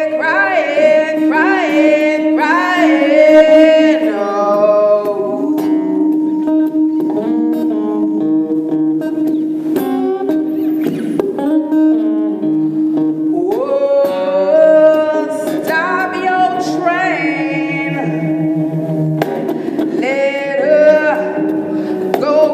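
Live improvised music: an electric guitar holds a steady low note while sliding, swooping pitches rise and fall over it, together with wordless singing.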